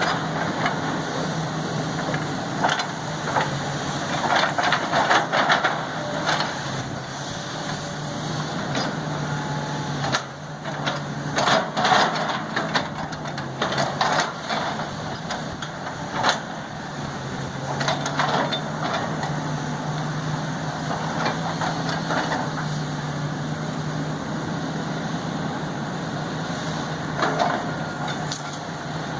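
Backhoe's diesel engine running steadily, with bursts of sharp knocks and clanks every few seconds.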